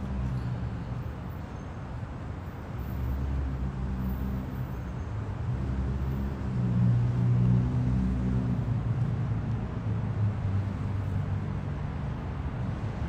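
Low rumble of motor-vehicle traffic with an engine note. It grows louder about three seconds in, is loudest around the middle, then eases off.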